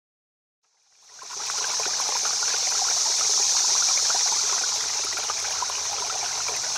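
River water running and trickling over stones, a steady rush that fades in about a second in.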